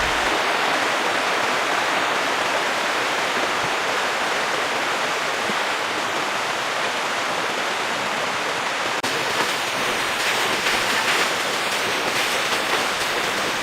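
Steady rush of water from a waterfall, an even noise with no breaks.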